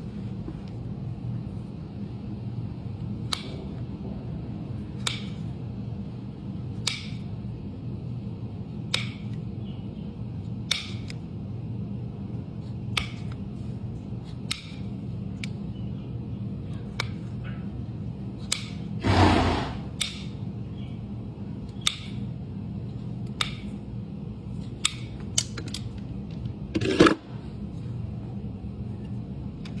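Farrier's trimming tools working a horse's hoof: sharp snips and clicks about every two seconds, with a longer scraping cut about two-thirds of the way in and a sharp loud cut near the end, over a steady low hum.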